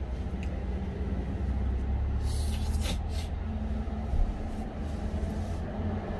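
Steady low rumble of an idling truck engine, heard from inside the cab, with a few short rustles of a paper tissue about two to three seconds in.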